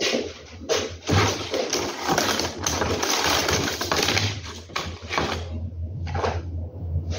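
Rustling and scraping from parts being handled while a window-blind rail is assembled at a workbench, nearly continuous for several seconds and then broken into shorter bursts, over a low steady hum.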